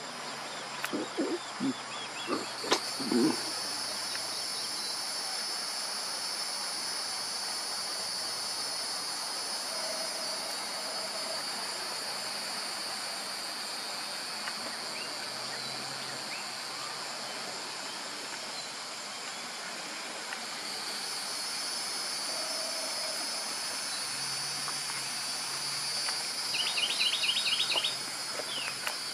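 A steady high-pitched chorus of insects, easing slightly in the middle and swelling again later. Near the end a bird gives a quick series of short rising chirps.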